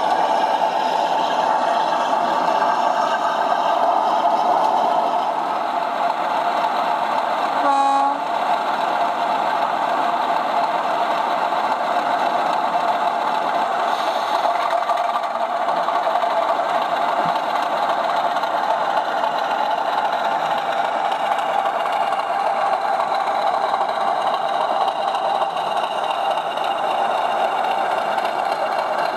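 00 gauge model diesel locomotives running on DCC-controlled track, giving a steady mechanical running hum, with one short horn toot about eight seconds in.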